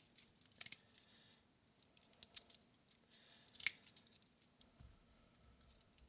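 Handheld fidget slider clicking as it is slid back and forth: irregular sharp clicks, several close together in the first second, a cluster about two and a half seconds in and the loudest just before four seconds in.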